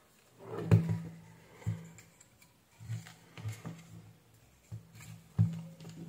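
Irregular knocks and clicks of a hair dryer's plastic housing and fan being handled and set down on a workbench.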